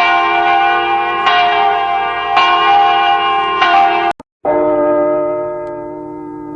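Cathedral church bells ringing, with a fresh strike about every second and a bit over ringing tones. Just after four seconds the sound drops out for a moment, and a different-pitched bell tone rings on and slowly fades.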